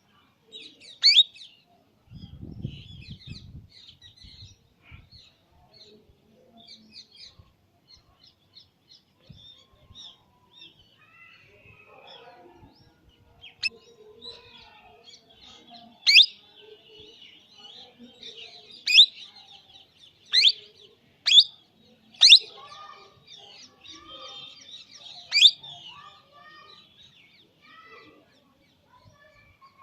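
Baby parrot calling: about eight loud, sharp shrieks that fall steeply in pitch, most of them in the second half, over softer steady chattering chirps.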